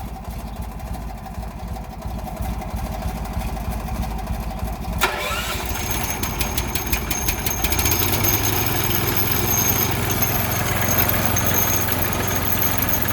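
Garden tractor engine idling, then about 5 s in the rototiller's small Honda engine is started: a sharp click, a few seconds of rapid firing as it catches, and from about 8 s in it runs steadily alongside the tractor.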